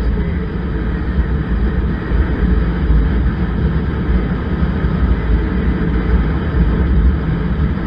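A motorcycle riding at road speed, with wind buffeting the microphone: a loud, steady, mostly low rumble.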